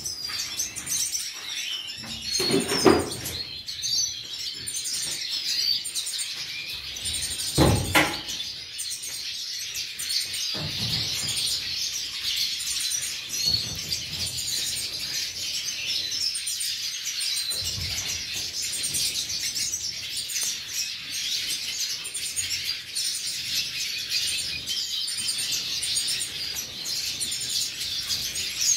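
A flock of captive siskins twittering and chirping without pause, with a high, thin note recurring every second or so. Two short low thumps stand out about three and eight seconds in.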